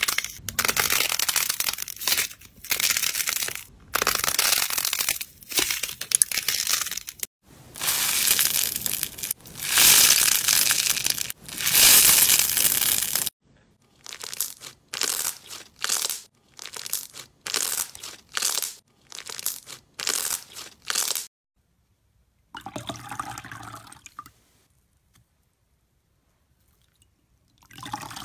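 Slime being worked by hand. For about the first thirteen seconds a thick slime is pulled and torn apart, with a dense, loud crackling. Then a clear slime is squeezed in short wet squelches, about two a second, followed after a pause by a couple of quieter squishes.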